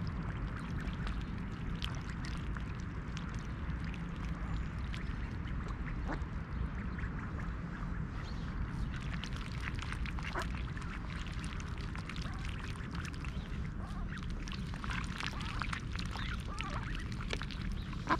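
Mallard hen and her nearly grown ducklings quacking in short scattered calls, busiest in the second half, over a steady low background rumble.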